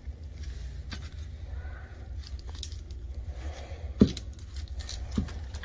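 Separated metal fuel-pump housing parts being handled on cardboard: light scraping and rustling, then two dull knocks about a second apart near the end, over a steady low hum.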